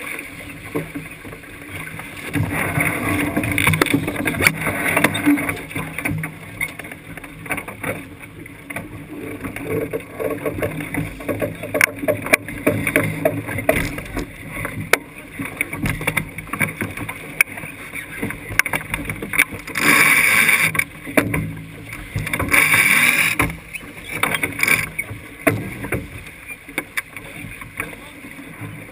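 Water rushing and splashing along the hull of a heeled racing sailboat under way, with short knocks and clicks from the deck gear and crew voices. Two louder rushes of water and spray come about two-thirds of the way through.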